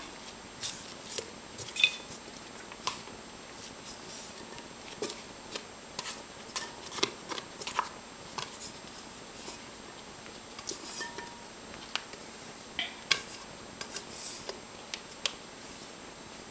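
Scattered light scrapes and clicks of a plastic dough scraper against a stainless steel mixing bowl as sticky bread dough is worked out of the upturned bowl onto a floured counter.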